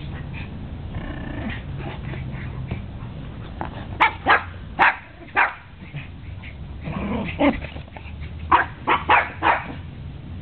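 Dogs barking at rough play. Four sharp barks come in quick succession about four seconds in, and a rapid burst of several more comes near the end.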